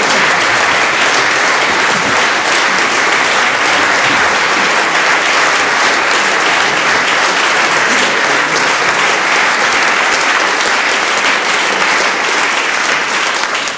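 A roomful of people clapping in sustained applause, steady and loud, easing off slightly near the end.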